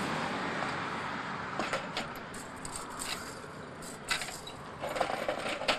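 Broom and dustpan sweeping on a concrete driveway: a scatter of short scrapes and clinks, about one every second from about two seconds in. Under them, a broad rushing noise fades away over the first seconds.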